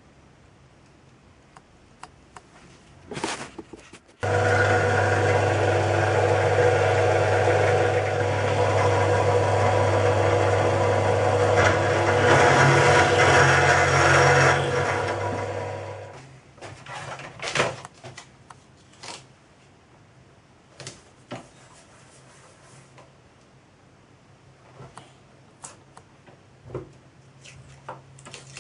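Bench drill press running while drilling through thin brass sheet: a loud steady motor hum that starts suddenly about four seconds in and dies away over a second or so near the middle. Light clicks and taps from handling the metal follow.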